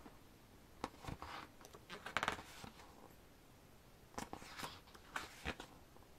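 Pages of a thick album photobook being turned by hand: faint paper rustles and flicks in several short bursts.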